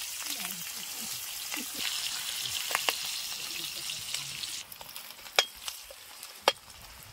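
Chicken pieces sizzling as they fry in an iron wok over a wood fire, a steady hiss. The sizzle drops away sharply about two-thirds of the way through, followed by a few sharp clicks.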